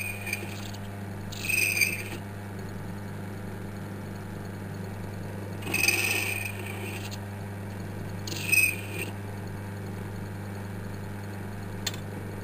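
Small metal lathe running with a steady motor hum, while the cutting tool squeals against the spinning workpiece in short bursts of about a second, three or four times, as the feed is wound in by hand.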